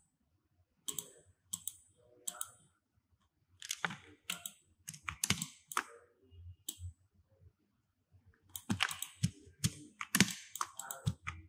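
Irregular clicking of a computer mouse and keyboard, in scattered groups with short pauses between.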